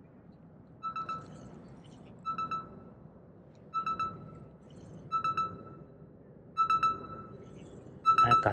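A pitched electronic beep, added as a suspense sound effect, sounding six times about every second and a half and growing louder each time.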